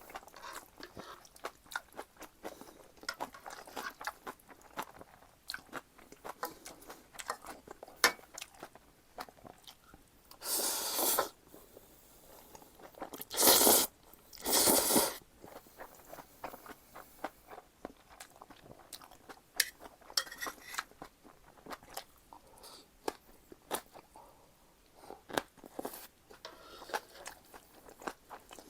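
Close-miked eating of Jjapaghetti noodles and green onion kimchi: chewing and crunching with many small wet clicks, and three loud, noisy bursts about a second long near the middle, the sound of noodles being slurped.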